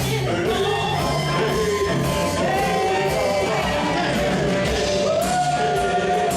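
Live band music with singing: a melody line sung over bass and a steady beat.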